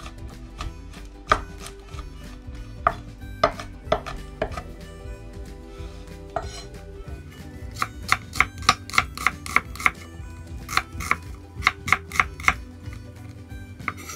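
Chef's knife chopping garlic on a wooden cutting board: a few scattered knocks at first, then a fast run of chops, about four a second, with a short break in the middle of the run.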